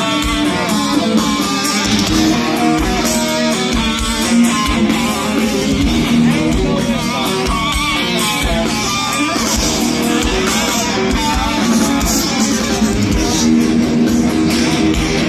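Thrash metal band playing live: heavy distorted electric guitars over a steady drum beat, loud and unbroken, heard from inside the crowd.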